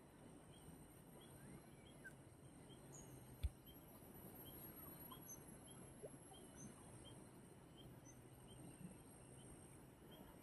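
Near silence with faint outdoor ambience: a steady high insect drone and small chirps repeating about twice a second. A single sharp click comes about three and a half seconds in.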